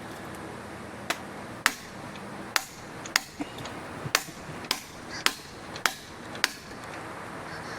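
Nine sharp hammer blows on metal, about two a second, with a short metallic ring after each: hammering to break a seized cylinder head bolt loose on a 1997 Johnson 115 OceanRunner outboard after heating it with a propane torch.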